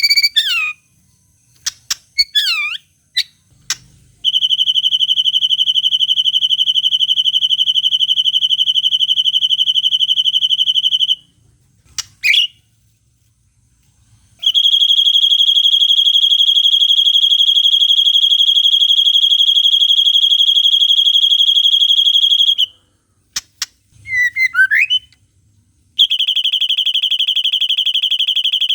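White-rumped shama (murai batu) singing: long, rapid, buzzy trills held at one steady pitch for several seconds each, three of them, broken up by short swooping whistled notes. These long trills are the cililin-style 'shot' notes that masteran recordings are made to teach.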